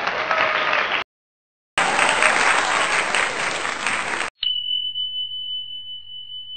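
Applause in two bursts, the first ending about a second in and the second starting shortly after a brief silence and lasting about two and a half seconds. Then a single bright chime is struck and rings on, slowly fading.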